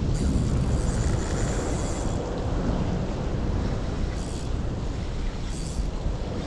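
Wind rumbling on the microphone over a steady hiss of rain and river water, with a few brief higher hisses.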